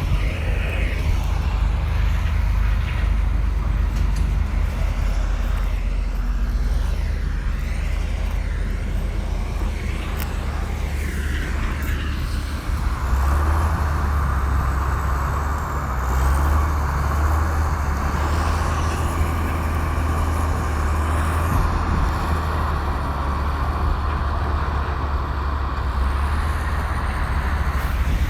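Komatsu bulldozer's diesel engine running steadily with a deep low rumble; about halfway through a steady higher whine joins in and holds.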